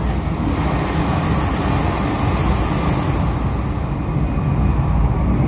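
Interior running noise of an MTR M-Train electric multiple unit: a steady rumble of wheels on rail and traction equipment heard inside the passenger car. The high hiss eases off about four seconds in.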